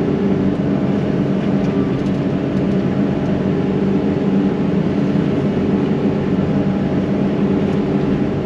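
Yanmar SV100 excavator's diesel engine running at a steady speed, a constant drone with no change in pitch.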